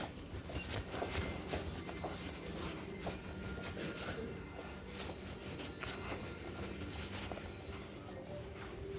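Quiet indoor shop ambience: a low steady hum with scattered soft rustles and clicks.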